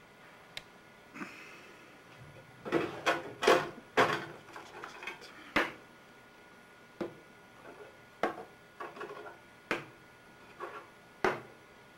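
Small bottles and objects being handled and set down on a desk: irregular clicks and knocks with some rustling, a busy cluster about three seconds in, then single knocks every second or so.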